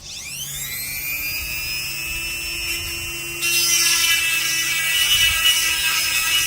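Small electric chainsaw sharpener motor (Seesii 180W, on its slowest speed) switched on, its whine rising as it spins up and then holding steady. About three and a half seconds in, the 5/32 grinding stone bites into a chain tooth and a louder, rough grinding noise joins the whine.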